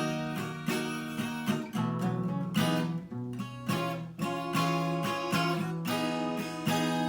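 Seagull 12-string acoustic guitar strummed in a steady rhythm, its chords ringing between strokes and changing every few seconds.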